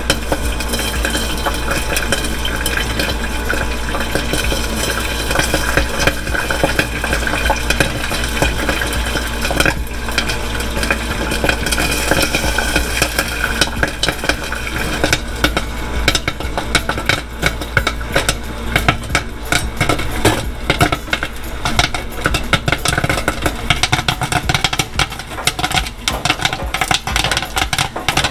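Popcorn popping in the heated kettle of a theater-style popcorn machine, with oil sizzling and a steady low hum from the stirring motor. The pops start sparse and build to a dense, rapid crackle from about halfway through, as the batch reaches full popping.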